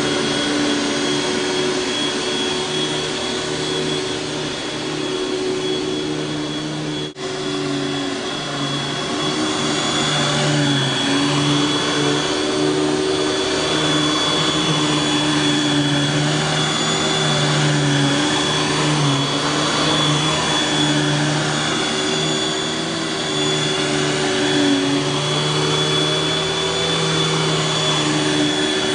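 Panasonic Jet-Flo MC-6210 upright vacuum cleaner running steadily with a high, even motor whine. About seven seconds in, the sound drops out for an instant.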